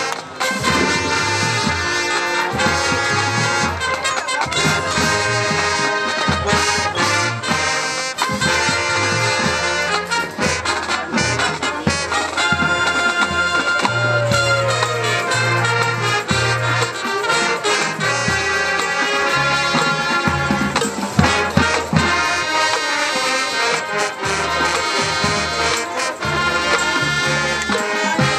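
Marching band brass section playing a loud, full passage of its field show, with sharp drum hits through it.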